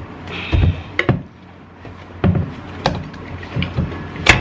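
A string of knocks and clanks as an electric unicycle hub motor is forced out of its metal rim by standing on it, working against the pull of the motor's strong magnets; the loudest clank comes near the end.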